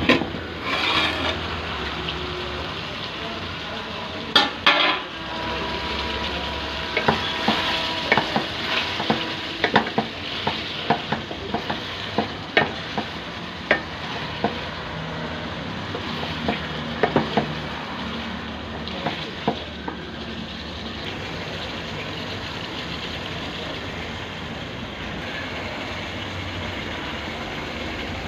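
Chicken sukha masala sizzling as it fries in a pan, stirred with a metal spoon that clicks and scrapes against the pan over the first two-thirds; after that only the steady sizzle.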